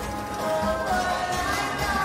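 Background music: held melody notes over a steady low beat.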